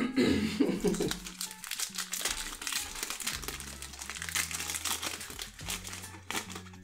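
Foil wrapper of a Pokémon TCG booster pack crinkling with many rapid crackles as the pack is opened and the cards are drawn out.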